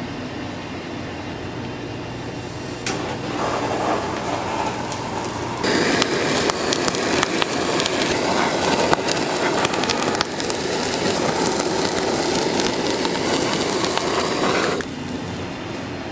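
Handheld kitchen blowtorch searing slices of chashu pork belly: after a steady background hum, it starts with a click about three seconds in. Its steady roar grows louder about six seconds in, with crackles running through it, and cuts off sharply near the end.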